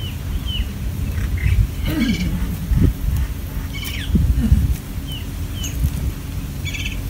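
Birds calling: a few short high chirps and three brief buzzy calls, over a steady low rumble.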